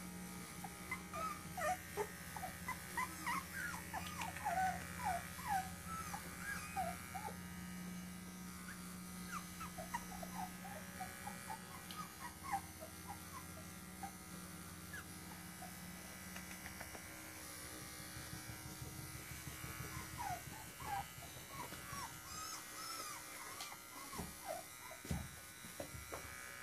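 Three-week-old poodle puppy squeaking and whimpering in many short, high, rising-and-falling cries, in bursts, over the steady hum of a small cordless pet clipper trimming its fur. The clipper hum stops about two-thirds of the way through, and the squeaks pick up again near the end.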